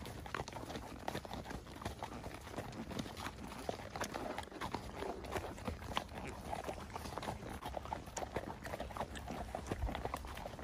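Several horses walking on a gravel track: an irregular, continuous clip-clop of hooves on the stones.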